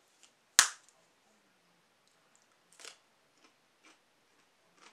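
A plastic seasoning shaker bottle set down on a table with one sharp knock about half a second in, followed by a few faint clicks and rustles of handling.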